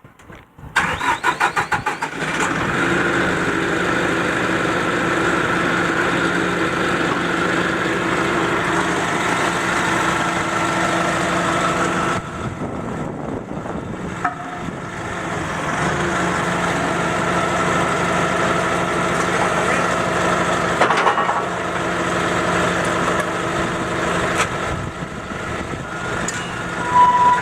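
Forklift engine cranked by its starter and catching about two seconds in, then running steadily. The engine note drops around twelve seconds in and rises again a few seconds later. A short beep comes near the end.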